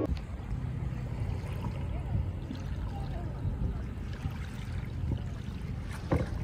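Outdoor river ambience: wind rumbling on the microphone over gently lapping water, with faint voices and a single knock near the end.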